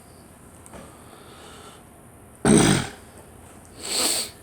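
A girl coughing twice: one sudden, loud cough about two and a half seconds in, then a second, softer cough near the end.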